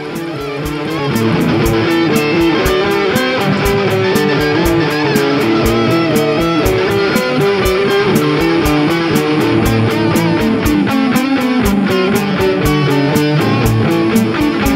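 Rock music with electric guitar and a steady beat, swelling up over the first second and then playing on at full level.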